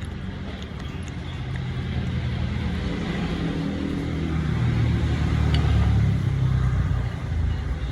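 A motor vehicle's engine running close by: a low rumble that grows louder to a peak about six seconds in, then fades as it passes.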